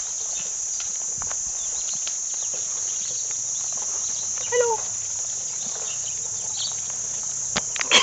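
Steady high-pitched drone of insects, with faint scattered clicks and one short call about four and a half seconds in.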